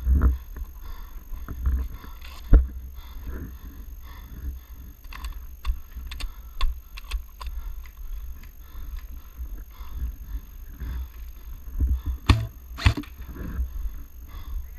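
Low rumble of wind and movement on a body-worn camera's microphone, with scattered sharp clicks and ticks and two louder knocks close together near the end.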